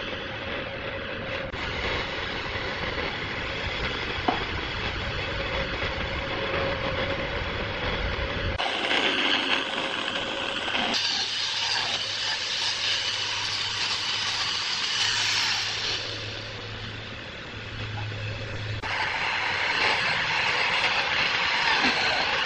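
Woodworking machinery running, a steady mechanical noise that changes character abruptly three times as one clip gives way to another.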